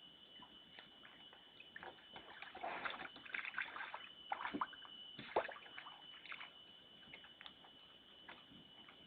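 A bear splashing and sloshing water as it works at a water-filled hole holding food. The splashes come in irregular bursts through the middle, the loudest about five seconds in, over a steady faint high-pitched tone.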